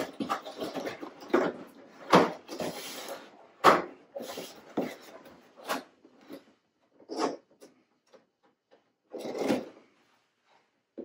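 Cardboard box being opened by hand: tape pulled off and the cardboard flaps scraped and rustled in irregular bursts, with sharper cracks about two and four seconds in, thinning out to a few short rustles later on.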